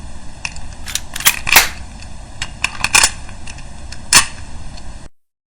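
A string of sharp gunshot-like cracks, the loudest about a second and a half in and further loud ones near three and four seconds, over a steady hiss and hum.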